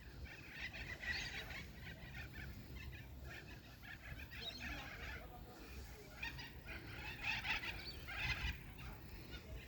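Birds calling in repeated bursts of rapid chattering notes.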